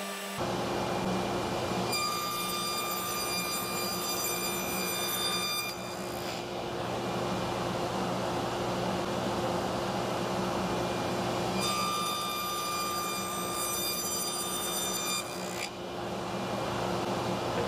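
Electric shop power tool running with a steady motor hum that comes in just after the start. Twice, for about four seconds each, a high-pitched whine rises over the hum.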